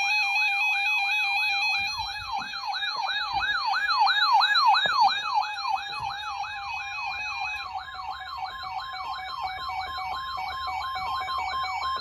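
Electronic emergency-alert siren: a fast rising-and-falling yelp, about three sweeps a second, over a steady, harsh alert tone. It is the attention signal that comes before a warning broadcast, and it cuts off abruptly.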